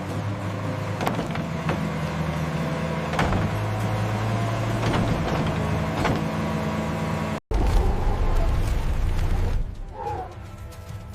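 A heavy construction machine's engine running steadily, with a few clanks and knocks. It briefly drops out about seven seconds in, then comes back as a louder, deeper rumble.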